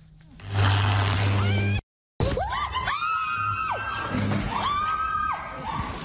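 People screaming in fright in a violent summer storm: several long, high screams from about two seconds in, over a steady rush of wind and rain. Before them comes a short burst of noise with a low hum, cut off by a moment of silence.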